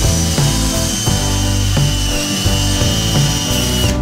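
Makita cordless drill boring a small hole into a hardwood clamp jaw, its motor whine steady and then stopping just before the end, over background music with a steady beat.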